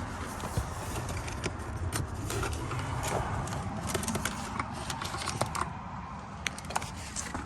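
Scattered light clicks and rattles of plastic interior trim and camera cable being handled and pulled, over a low steady background rumble.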